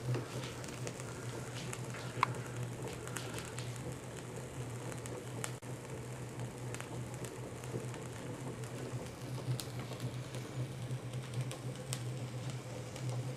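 Homemade Stirling hot-air engine running steadily: a low even hum with scattered light ticks from the mechanism, and one sharper click about two seconds in.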